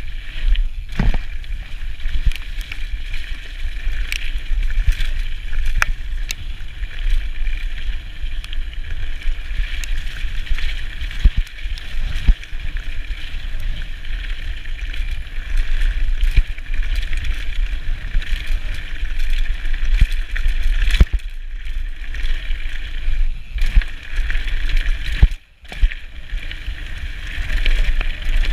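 Scott mountain bike descending fast on a gravel dirt track: wind rumbles on the microphone over tyres crunching on the surface and the bike rattling, with frequent sharp knocks over bumps. The sound briefly drops away about three seconds before the end.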